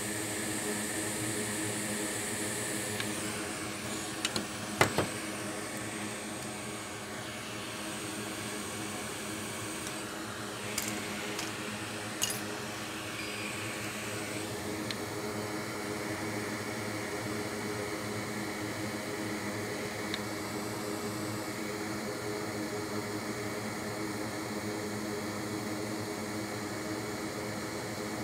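Steady hum of a fan, a low drone of several even tones under a hiss. A few small sharp clicks come about four to five seconds in and again around eleven and twelve seconds.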